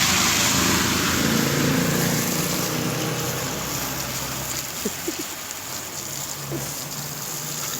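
Steady hiss of running water on a street, easing off slowly, with a vehicle engine idling underneath. A few brief faint squeaks come about five seconds in.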